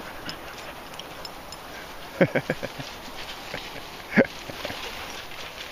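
Dog barking: a quick run of three or four barks about two seconds in, then one louder single bark about two seconds later.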